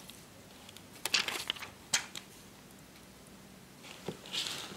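Handling noise from a powder compact held in the hands: a few short rustles about a second in, one sharp click around two seconds, and another brief rustle near the end.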